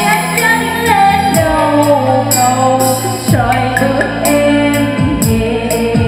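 A woman singing a Vietnamese song live into a microphone over a karaoke backing track with drums and deep bass, played loud through a powered trolley speaker with two 40 cm bass drivers.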